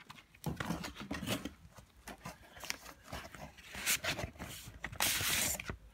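A vinyl LP in its paper inner sleeve being slid out of a cardboard gatefold jacket: irregular rustling, scraping and small knocks of paper and cardboard, with a louder hiss of sliding paper near the end.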